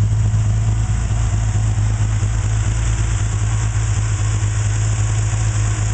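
1977 BMW E12 530i's fuel-injected 3.0-litre straight-six idling steadily, heard close to the open engine bay.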